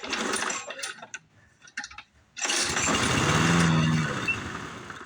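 Old gasoline lawn mower, which had not run in five years until recently revived, being pull-started: a rattle of the pull cord, then about two and a half seconds in the engine catches and runs loudly before its speed drops and it fades near the end.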